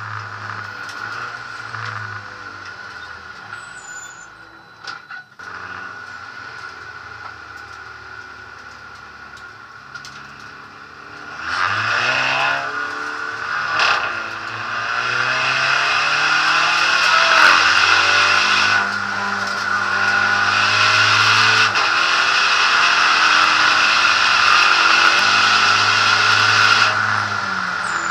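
SEAT Ibiza SC Trophy race car's engine heard from inside the cockpit: it runs low and steady at first, then about eleven seconds in it revs up hard and climbs through the gears, its pitch rising and falling back at each upshift, as the car goes from pit-lane speed to full acceleration on track.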